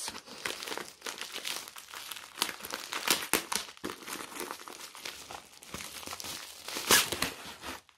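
Thin clear plastic wrapping crinkling and crackling as hands pull it open around a rolled canvas, in irregular bursts, the sharpest crackle about seven seconds in.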